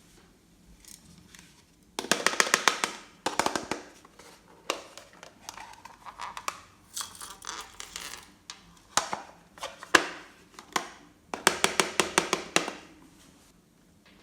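Glossy slime being squeezed and stretched by hand, letting out rapid crackling pops in several bursts, with scattered smaller clicks between them.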